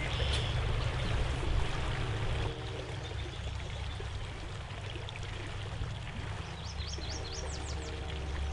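Steady rushing of flowing stream water, easing slightly about two and a half seconds in, with a short run of quick rising bird chirps about seven seconds in.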